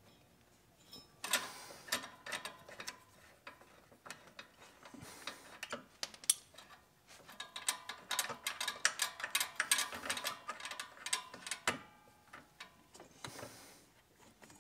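A zero-turn mower's drive belt being worked off its pulleys by hand: irregular clicking, rattling and rubbing as the belt is pulled and the pulleys shift, starting about a second in, with a short rustle near the end.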